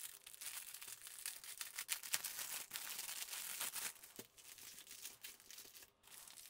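Clear plastic wrap crinkling and tearing as it is pulled off a roll of small plastic bags of diamond-painting drills. This is followed by softer rustling of the bags as they are unrolled. The crackling is densest for about the first four seconds and then thins out.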